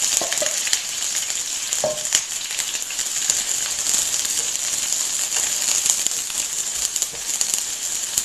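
Sliced onion rings sizzling in hot vegetable oil in a stainless steel skillet, just dropped in to sauté and stirred with a wooden spatula. A steady, loud hiss with a couple of light knocks in the first two seconds.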